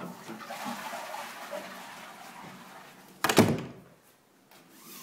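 A rushing, rustling noise for about three seconds, then one loud thump, the loudest sound here, dying away quickly.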